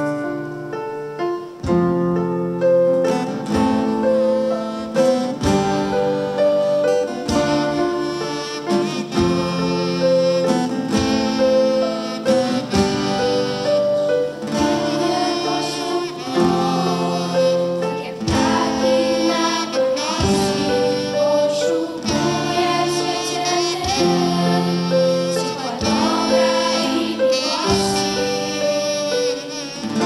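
Girls singing a song in Polish together, accompanied by strummed acoustic guitar, in steady phrased verses heard live through the stage sound system.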